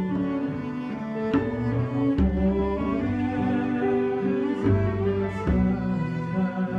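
Slow instrumental music on low bowed strings, sustained notes moving from one to the next about every second.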